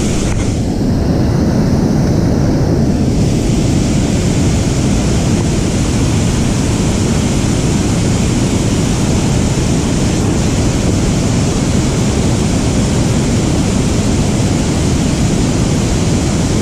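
Steady rushing of river water pouring over a low dam and churning in the white water below it, a dense, even noise that grows a little brighter about three seconds in.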